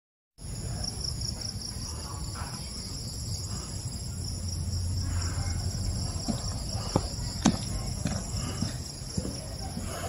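Crickets trilling steadily in a night-time forest chorus, a continuous high pulsing trill. A few sharp clicks sound near the middle over a low rumble.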